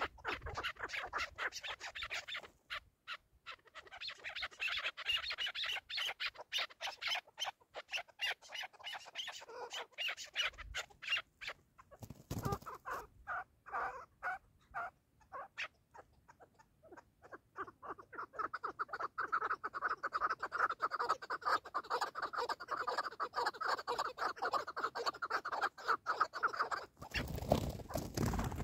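Chukar partridges calling in long runs of rapid clucking notes, with a short burst of noise near the end.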